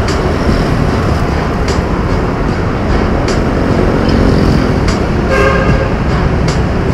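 Steady road and wind noise of a ride among traffic, with a short vehicle horn toot about five seconds in and a light click roughly every second and a half.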